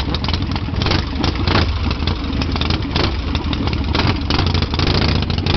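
Harley-Davidson chopper's V-twin engine idling steadily with a fast, even exhaust beat.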